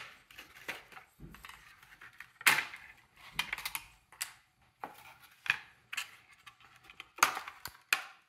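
3D-printed plastic support bars being snapped off printed lithophanes by hand: a series of sharp snaps and clicks with plastic parts scraping and clattering between them. The loudest snaps come about two and a half seconds in and again near the end.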